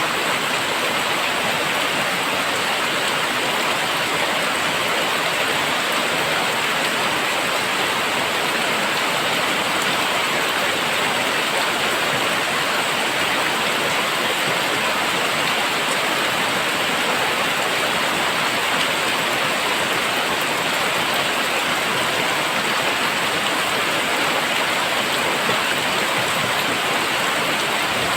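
Very heavy rain falling steadily: a dense, even hiss of downpour with no let-up.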